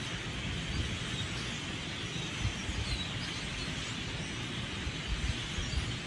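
A large flock of grackles flying over: a steady rushing din of many birds, with a few faint chirping calls picking out of it.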